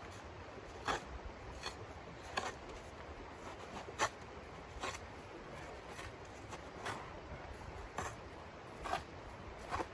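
Small hand shovel scraping and digging into packed snow in short strokes, roughly one a second.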